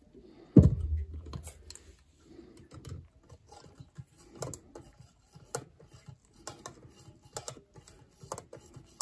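A thump about half a second in as the stainless steel lid comes off a glass teapot, then a string of small clinks and taps as the steel mesh infuser is lifted and jiggled in the tea.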